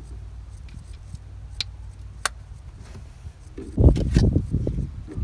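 Wind on the microphone: a low steady rumble with a couple of faint clicks, turning into loud, gusty buffeting about three and a half seconds in.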